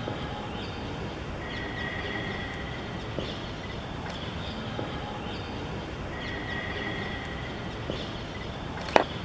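Open-air ground ambience: a steady background hiss with faint high whistling tones that come and go twice, and one sharp click near the end.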